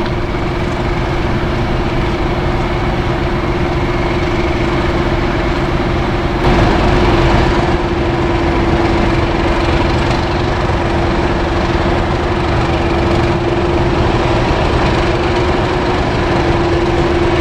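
Diesel locomotive engines idling, a steady heavy hum carrying a held, slightly wavering tone. The sound swells briefly about six and a half seconds in, then settles back.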